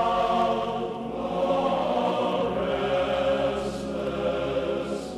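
Background music: a choir singing slow, long-held chords.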